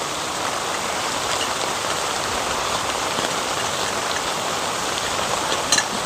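Steady rain falling on the tarp flysheet overhead, an even hiss, with a couple of faint clicks near the end.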